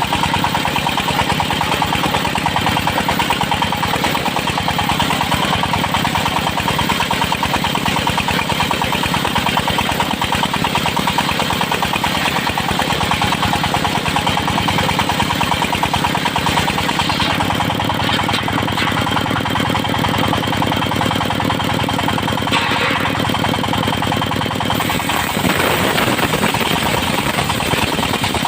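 The engine of a circular-saw sawmill running steadily. Its note shifts a little once past the middle and again near the end.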